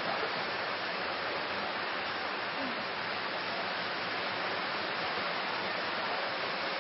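Steady, even hiss with nothing else over it: the recording's background noise.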